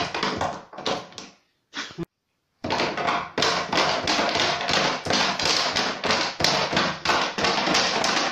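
Jointed wooden limberjack dog puppets clattering their feet on a thin wooden paddle board in a fast, irregular tapping rhythm. The clatter dies away about a second in, stops briefly, and starts again about two and a half seconds in.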